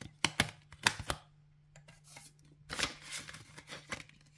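Paper banknotes being handled and tucked into a cash-stuffing binder envelope: a quick run of sharp crisp snaps in the first second, then a short papery rustle about three seconds in.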